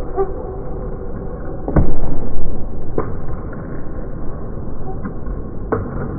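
Table tennis ball clicking off rackets and the table in a forehand drive rally: a handful of sharp knocks about a second apart. The loudest comes about two seconds in, together with a low thud.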